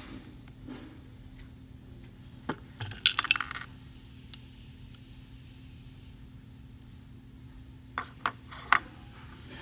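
Miniature plastic dollhouse kitchen pieces being handled and set down on a hard tabletop. A single knock comes first, then a brief rattling clatter about three seconds in, and three light clicks near the end.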